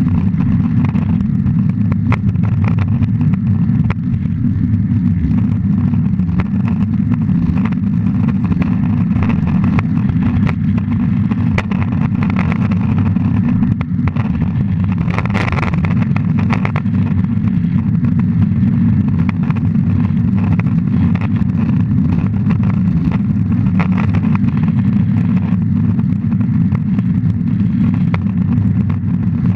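Longboard wheels rolling over asphalt, heard from a camera mounted on the board's deck: a steady, loud low rumble with frequent small clicks. About halfway through, a brief higher noise rises over it for about a second.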